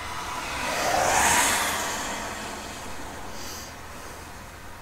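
A car driving past on a wet road: its tyre hiss swells to a peak about a second in, then fades away.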